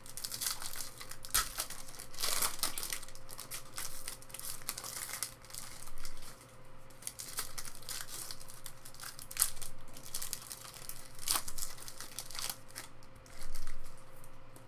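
Foil wrapper of a trading-card pack crinkling and tearing as it is opened by hand, in a dense run of crackles, with a faint steady hum underneath.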